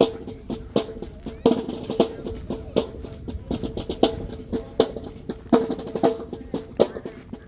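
Marching band drumline playing a cadence: snare drums with rolls over bass drum hits, with sharp accented strikes roughly every three-quarters of a second.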